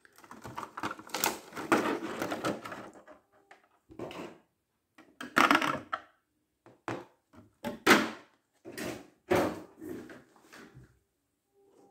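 Clear plastic clamshell packaging crackling and popping as it is pulled apart and handled. A dense run of crackling in the first few seconds gives way to several separate sharp crackles about a second apart.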